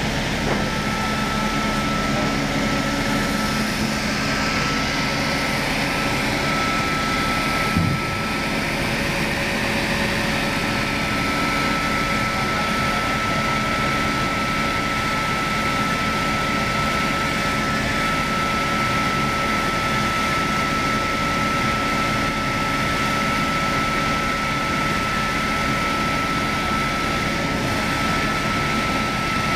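A circular-saw log-cutting machine running steadily, its motor and saw giving a constant high whine. There is a single knock about eight seconds in, after which the lower hum drops away.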